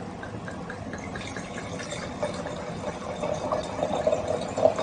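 White wine poured from a bottle into a stemmed wine glass: a thin trickle whose pitch rises slowly as the glass fills, then a louder splashing pour in the second half.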